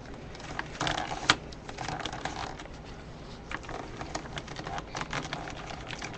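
Irregular light clicks and taps on a computer keyboard, with brief rustling handling noise, the loudest click about a second in.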